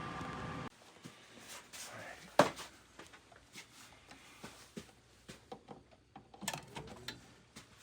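Steady hum of a power-vented water heater and its circulating pump running, which cuts off abruptly under a second in: the heater has shut off unexpectedly. Scattered light clicks and ticks follow, with one sharper tap.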